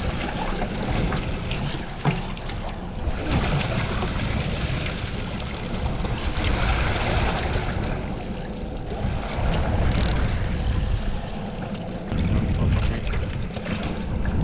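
Wind buffeting the microphone aboard a slow-trolling boat at sea, with water washing against the hull over a low, steady engine rumble.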